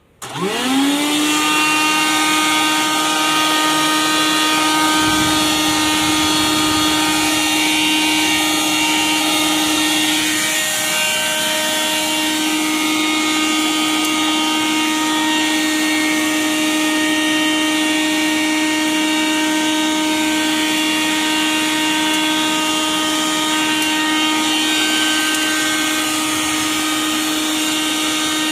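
Rebuilt vacuum cleaner motor in a homemade Freon-tank vacuum switched on, spinning up within a second to a steady high whine and running on. The pitch dips briefly about ten seconds in.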